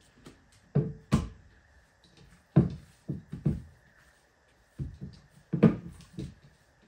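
Irregular dull thuds and knocks as a ball of kneaded bread dough is set into a mixing bowl and pressed and handled inside it, the bowl bumping on the table.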